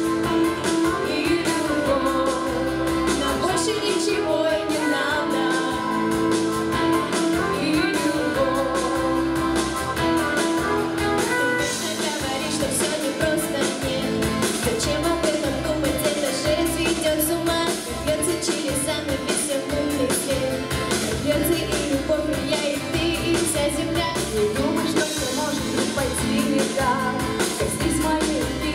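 Two girls singing a duet into handheld microphones over a backing track, taking turns on the lead vocal.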